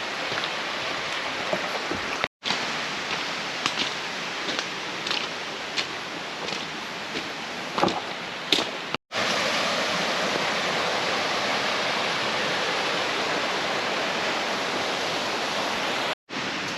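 Steady rushing of falling water from a stream or waterfall, with a few faint clicks in the first half. The sound drops out for an instant three times.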